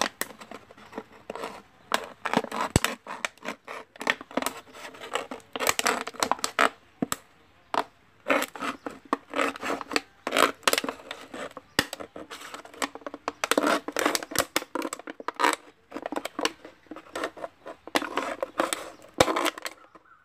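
Thin plastic water bottle crackling and crinkling as a small pointed knife saws and slices around its side, in short irregular scrapes with brief pauses. The user finds the knife not sharp.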